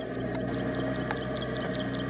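Kubota DC70 combine harvester's diesel engine running steadily as it cuts rice, a constant drone. A high chirp repeats over it about five times a second.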